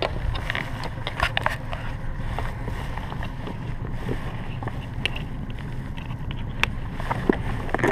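Low rumble of wind buffeting the microphone, with scattered clicks and rustles from hands handling a fishing backpack and a plastic tackle box.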